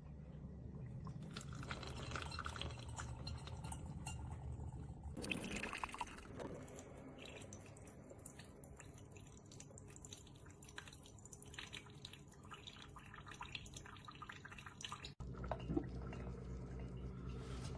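Coffee running and dripping, faint, over a low steady hum; the sound breaks off abruptly about fifteen seconds in and resumes.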